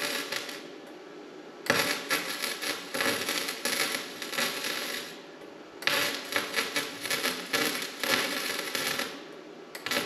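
Electric arc welder laying weld beads on scrap steel, in runs of about three seconds with short breaks between where the arc stops and is struck again.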